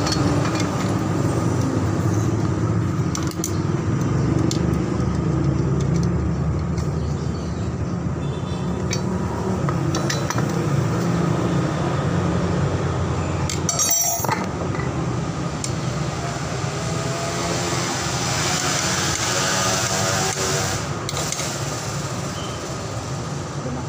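Steady low mechanical rumble, with scattered metal clinks and knocks from parts and tools being handled while a pressure-washer pump is reassembled.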